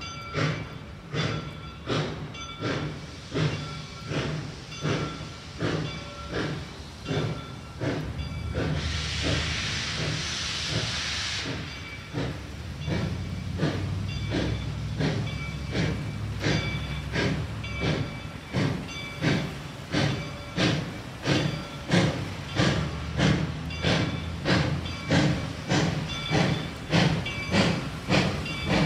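Steam locomotive Reading & Northern 425, a 4-6-2 Pacific, working hard as it pulls away. Its exhaust chuffs beat evenly and quicken from about one and a half to about two a second. About nine seconds in, a burst of steam hiss lasts roughly three seconds.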